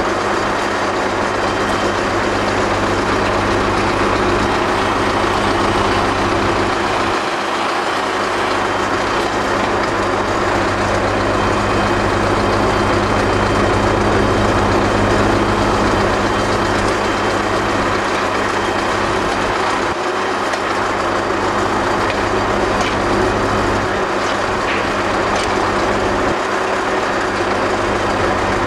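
BvL vertical feed mixer running steadily as it mixes straw and fodder in its tub, with an engine humming without change underneath.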